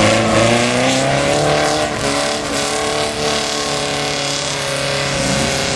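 Rail buggy's engine at high revs as it churns through a mud bog, its pitch climbing in the first second and then holding steady as the buggy pulls away.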